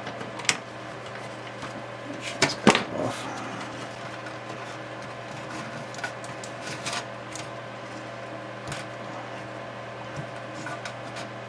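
Light clicks and knocks of a screwdriver and small screws being handled while the screws holding a synthesizer's power switch are taken out. The sharpest knocks come about two and a half seconds in, with a few fainter ticks later, over a steady low hum.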